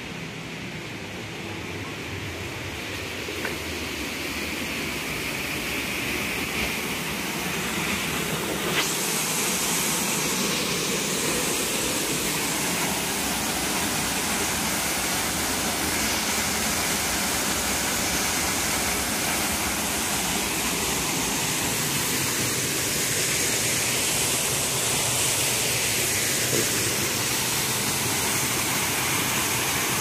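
Dolgoch Falls waterfall: a steady rush of falling water that grows louder over the first nine seconds or so, then holds steady.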